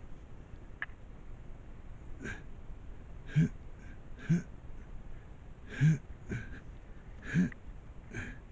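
A man's voice making short, separate vocal sounds, about seven in a row spaced roughly a second apart, with no clear words.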